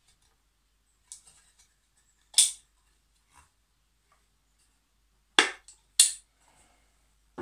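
A small handmade wooden box with homemade wire hinges being handled, opened and shut: a few sharp wooden clicks and clacks, a loud one about two and a half seconds in and two more about half a second apart near the end.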